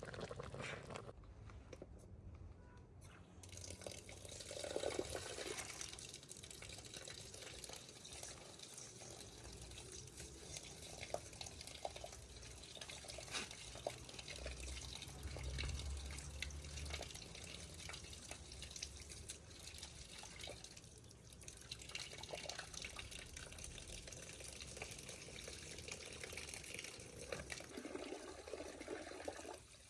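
Running water trickling and dripping, with small splashes.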